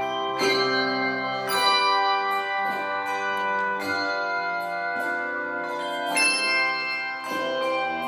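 Handbell choir ringing a piece: many pitched handbells struck together in chords every half second to a second, their tones ringing on and overlapping.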